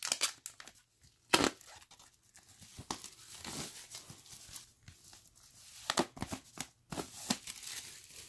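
Plastic shrink wrap being torn and peeled off a vinyl LP jacket, crinkling in irregular fits, with the sharpest rip about a second and a half in and a cluster of crackles near the end.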